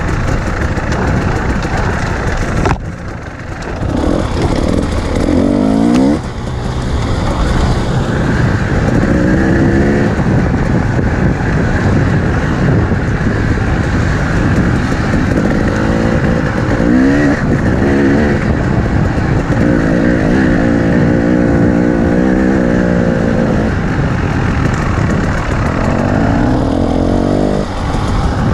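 Enduro dirt bike's engine under way, heard close from the rider's helmet: the revs rise and fall again and again as the throttle is worked on a dirt trail, with a brief easing off about three seconds in.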